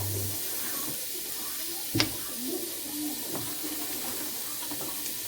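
Chopped onion frying in hot oil in a pot, with a steady sizzle and one sharp utensil knock about two seconds in.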